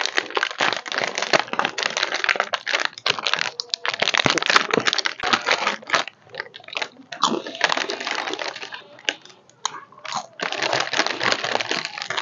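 A plastic snack packet crinkling and tearing as it is opened by hand. The crinkling comes in spells with a couple of short pauses.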